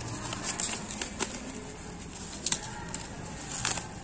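Plastic bubble wrap crinkling and rustling as it is pulled off a stack of red plastic mini ceiling fan blades, with a few sharp crackles, the loudest about two and a half seconds in.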